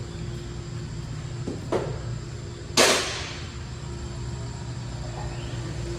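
A short knock, then about a second later a loud, sharp bang that rings off briefly, over a steady low hum.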